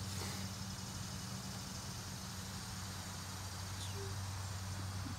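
Quiet outdoor ambience: a steady low hum with a faint high hiss above it, and a short chirp about four seconds in.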